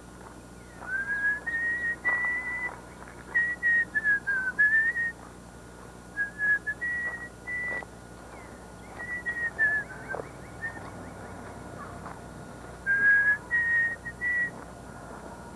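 A person whistling a tune in short phrases: single high notes with small slides between them, with several pauses.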